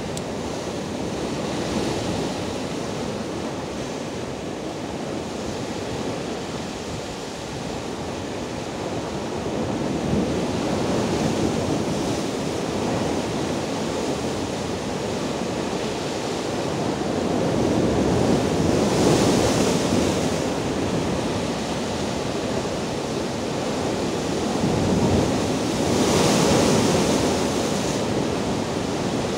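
Rough sea waves breaking over and around rocks, a continuous rushing wash of surf. Heavier waves surge louder three times, around ten, nineteen and twenty-six seconds in.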